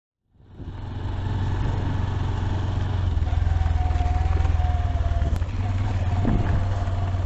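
Honda Livo's 110 cc single-cylinder four-stroke engine running steadily under way, with a fast, even beat. A thin steady whine joins about three seconds in.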